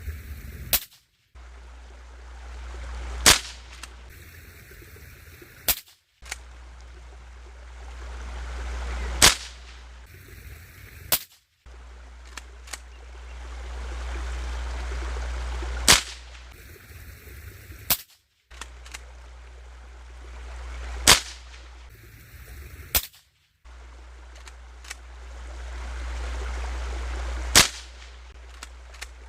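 Remington Fieldmaster Model 121 pump-action .22 rifle firing five sharp single shots several seconds apart. Fainter clicks come between the shots, over a hiss of background noise.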